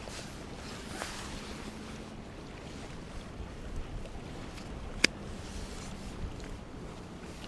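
Steady outdoor wash of wind and sea water at a seaside fishing pier, with a few light clicks and one sharp, loud click about five seconds in.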